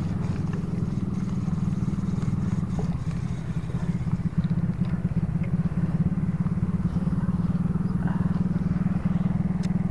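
A small engine running steadily, a low even drone.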